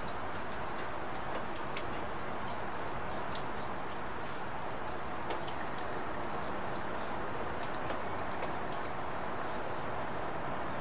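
Steady rain with individual drops ticking irregularly and sharply on nearby surfaces.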